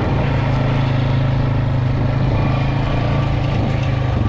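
Engine of a four-wheel-drive farm vehicle running at a steady speed while driving, an even hum.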